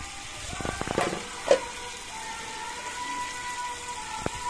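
Diced potatoes and carrots frying in oil in a metal wok, a steady sizzle. A few knocks and one louder metal clink sound in the first second and a half, and a faint steady tone runs through the second half.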